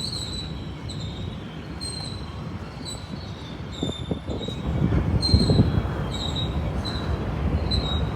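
Train rolling past with a steady rumble and short high-pitched wheel squeals repeating every half second or so. The rumble grows louder about five seconds in.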